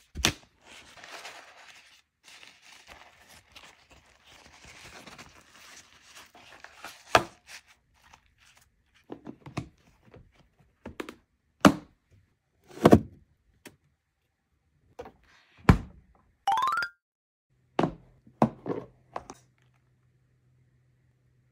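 Kitchen paper rustling, then a series of sharp knocks and thunks as a plastic food container and its snap-on lid are handled and pressed down on a wooden table. A short rising squeak comes about two-thirds of the way through, and a faint low hum near the end.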